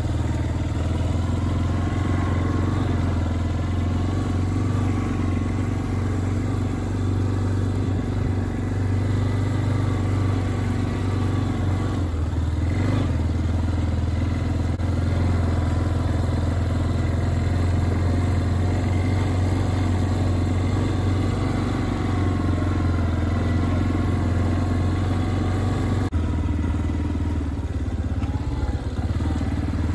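A vehicle's engine running steadily while driving along a trail, with a strong low hum that holds throughout.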